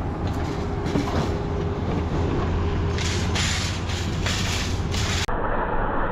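An engine running steadily, with loud metallic rattling and clattering about three to five seconds in.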